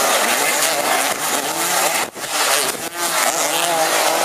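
Several racing engines revving up and down over one another, with a brief drop-out about two seconds in.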